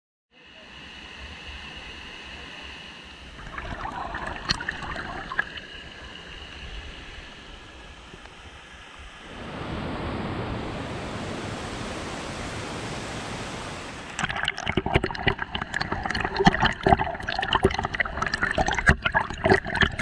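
Waterfall and stream water rushing over rocks, in stretches that change abruptly: a softer rush at first, a steady full rush from about the middle, then a louder, choppy stretch full of sharp clicks and splashes near the end.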